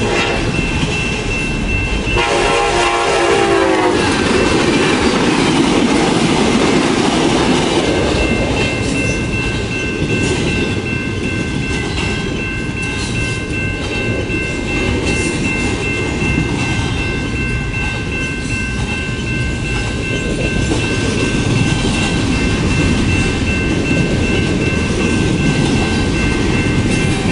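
Double-stack intermodal container train of well cars rolling steadily past close by, wheels on the rails. About two seconds in, a train horn sounds for roughly two seconds, sagging in pitch as it ends.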